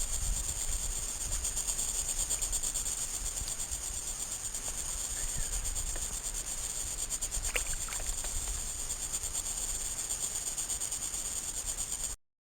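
Steady high-pitched insect chorus with a fast pulsing, over a low rumble. It cuts off suddenly near the end.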